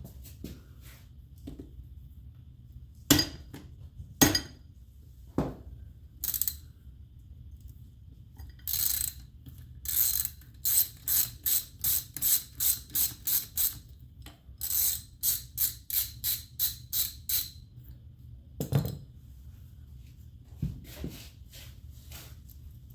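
Hand ratchet wrench clicking in two quick runs of strokes, about two or three a second, with a few single metal clicks and knocks before and after.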